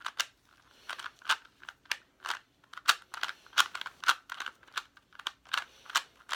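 Plastic clicking of a regular Rubik's-brand cube as its layers are turned by hand in quick, uneven turns during a solve, several clacks a second. The cube turns slowly and stiffly.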